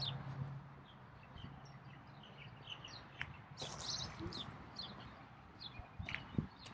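Birds chirping in short, scattered notes, with a low hum fading out in the first second and a couple of sharp knocks, the loudest near the end.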